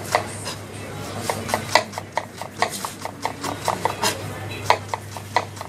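Kitchen knife quickly chopping spring onions on a cutting board: quick, uneven runs of sharp knife taps against the board. A steady low hum runs underneath.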